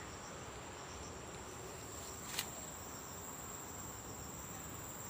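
Faint, steady high-pitched insect drone, with one short sharp click about halfway through.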